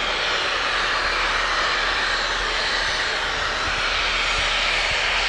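Southern Railway King Arthur class steam locomotive No. 30777 'Sir Lamiel' blowing off steam through its safety valves: a loud, steady hiss.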